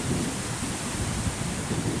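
Wind buffeting the camera's microphone: a steady rushing noise with an uneven low rumble underneath.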